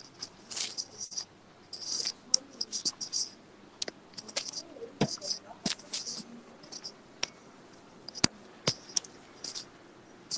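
Irregular string of brief scratchy rustles and sharp clicks, handling noise from someone working at a desk.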